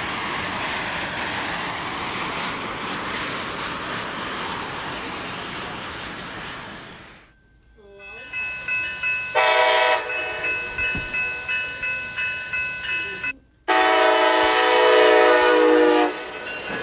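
Jet airliner noise from a Boeing 737 on landing approach, a steady rush. About seven seconds in it gives way to a railroad crossing bell ringing about twice a second as a Siemens Charger-led passenger train approaches, with a short locomotive horn blast. Near the end comes a long, loud horn blast.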